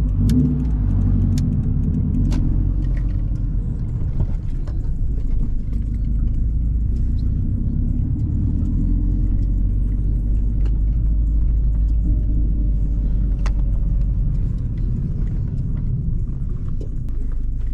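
2011 Subaru WRX's turbocharged flat-four engine and road noise while driving, a steady low rumble, with a few faint clicks.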